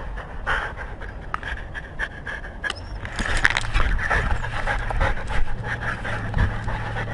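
A dog panting right up against a collar-mounted GoPro Hero3, the panting getting louder about three seconds in. Sharp clicks and knocks are scattered through it.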